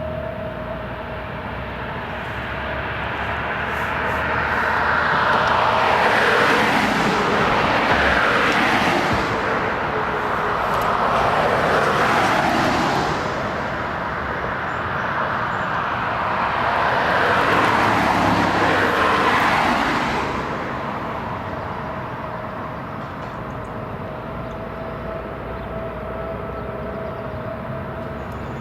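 Road traffic passing: a few vehicles swell up and fade away in turn, the loudest about a quarter and two-thirds of the way through. A faint steady tone sits underneath at the start and end.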